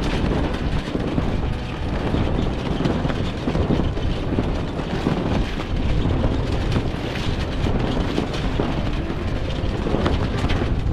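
Strong wind buffeting the microphone aboard a sailboat under sail: a loud, uneven rumble and hiss with no pauses.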